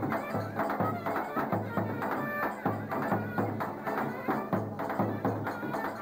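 Live Turkish folk wedding music: a davul bass drum beating a steady rhythm under a clarinet melody.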